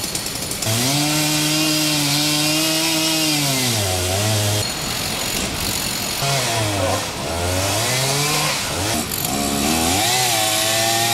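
Two-stroke chainsaw cutting through the trunk of a fallen tree, the engine revving up and holding under load, dropping back toward idle and revving again several times.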